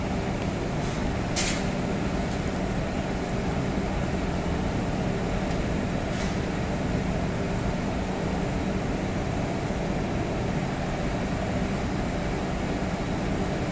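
Railway wagon traverser machinery running with a steady low drone and hum. A short sharp hiss of air comes about one and a half seconds in, and a fainter one about six seconds in.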